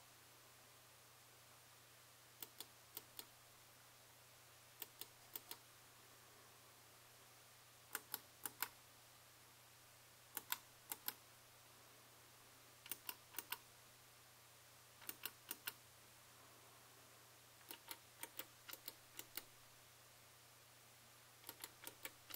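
TourBox Neo editing controller's plastic buttons being pressed, with clicky, sharp clicks in short groups of three or four presses every two to three seconds.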